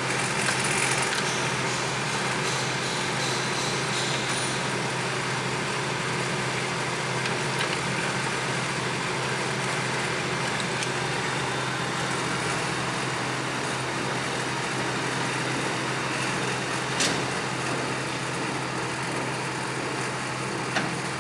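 Clausing Colchester Master 2500 engine lathe running steadily with its carriage on power feed along the ways, a continuous even machine hum. A single sharp click sounds about seventeen seconds in.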